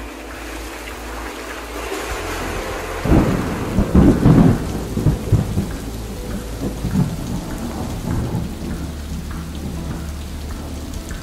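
Steady heavy rain with a roll of thunder that breaks in about three seconds in, is loudest about a second later, and rumbles away over the next few seconds.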